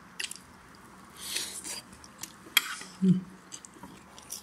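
Close-up eating sounds: lips smacking and sucking meat and sauce off stewed lamb knuckles, with a few light clicks of metal spoons against plastic bowls of rice, in scattered short bursts.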